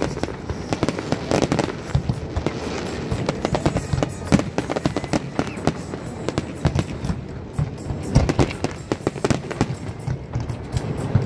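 Aerial firework shells bursting in rapid, overlapping succession: an unbroken barrage of bangs and crackles, busiest in the last few seconds.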